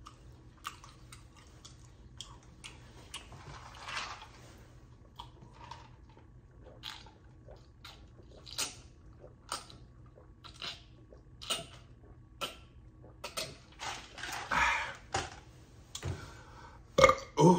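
Close-miked mouth sounds of a person eating and drinking: soft chewing clicks, then a run of gulps about once a second while drinking from a plastic cup, followed by a breathy exhale. A louder sharp click or knock comes near the end.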